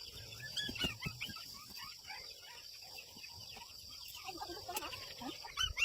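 Birds chirping in many short, quick high notes over a steady high-pitched hum.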